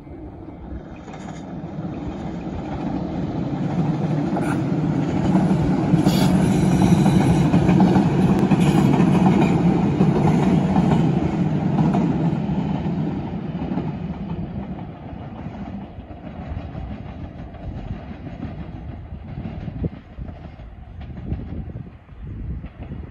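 JR Shikoku 2700 series diesel train running past on the track, its engines and wheels growing louder over the first few seconds. It is loudest around the middle, then fades as it pulls away and heads into a station stop.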